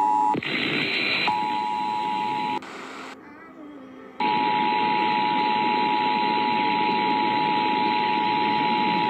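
Emergency Alert System two-tone attention signal over radio hiss. The dual tone breaks off just after the start and comes back for about a second. Then, after a brief dip in the hiss, it returns about four seconds in and holds steady. It is the alert tone that opens an Iowa Required Monthly Test broadcast.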